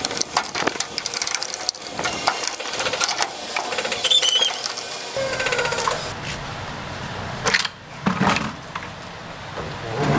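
Rapid rattling clicks of hand-tool work on the plastic fastening pins of a washing machine's casing, dense for about the first six seconds and sparser after.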